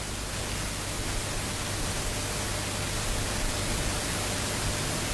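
Steady, even hiss with a faint low hum underneath: the recording's background noise, with no speech or music.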